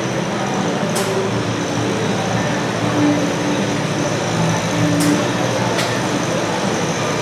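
Antique Farmall tractor engine working steadily under load as it pulls a weight-transfer sled, a continuous drone with three short sharp clicks about 1, 5 and 6 seconds in.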